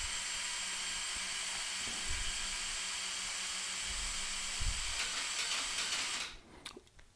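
Small electric motor and gearing of a Mould King 17007 brick-built crane model running steadily as the outrigger supports retract: an even whirring hiss with a faint steady hum and a couple of soft knocks. It cuts off suddenly a little after six seconds in.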